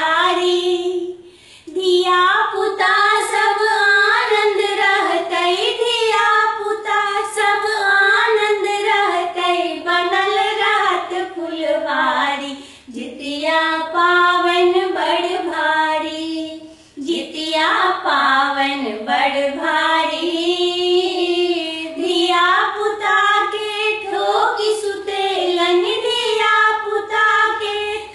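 A high voice singing a Maithili Jitiya folk song in long, flowing phrases, with short pauses for breath about a second and a half, twelve and a half, and seventeen seconds in.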